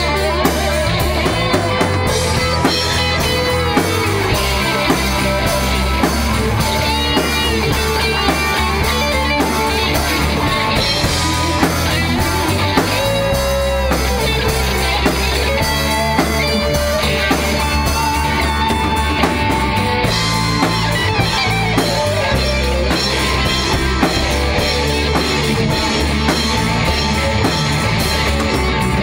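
Rock music with electric guitar and a drum kit playing a steady beat.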